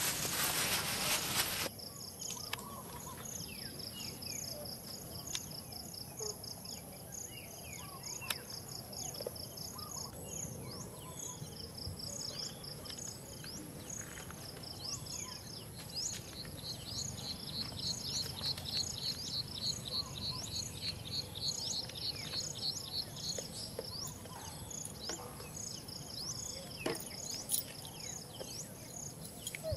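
Insects chirping: a steady high-pitched whine with repeated runs of rapid pulsed chirps over it. A loud, even hiss fills the first second and a half, then cuts off abruptly.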